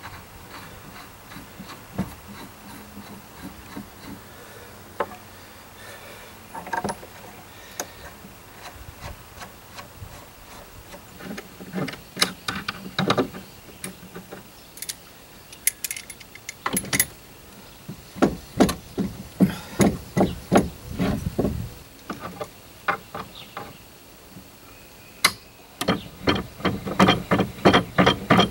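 Clamps being set and tightened on a new plywood boat transom board bedded in thickened resin: scattered knocks and metal clatter against the wood, with runs of quick clicking, several a second, about halfway through and again near the end.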